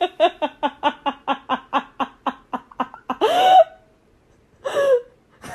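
A person laughing hard in a rapid, even run of short 'ha' pulses, about five a second. The run breaks off about three seconds in into one longer drawn-out laugh, and a short laugh comes near the end.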